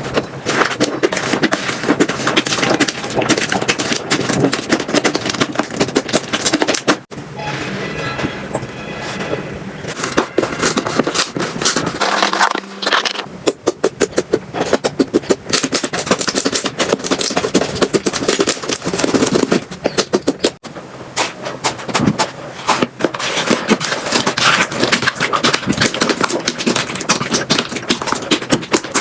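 Slime being squished, poked and stretched by hand, making dense rapid crackling and popping sounds. The sound changes abruptly twice as one slime clip cuts to the next.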